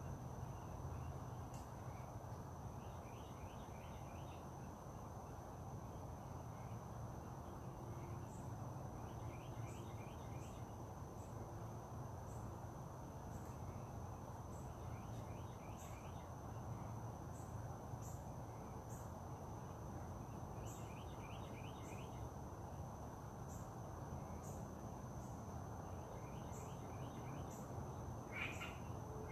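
Outdoor nature ambience: a steady high insect drone with short high chirps every second or two, and a bird's quick trill of notes repeating about every six seconds, over a low steady background rumble. Louder calls come in near the end.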